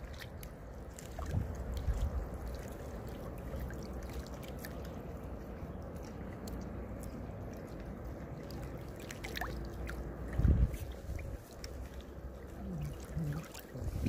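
Small waves lapping and sloshing against the river bank, with wind gusting on the microphone, the strongest gust about ten seconds in.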